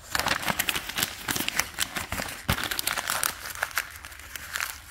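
Paper sheets and a plastic wrapper being crumpled up in a hand: a dense crackling that starts suddenly and dies away shortly before the end.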